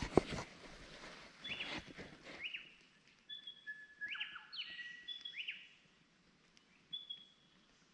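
A few footsteps on the forest floor in the first couple of seconds, the loudest just after the start, then several birds calling: short level whistled notes and quick falling chirps, repeated until near the end.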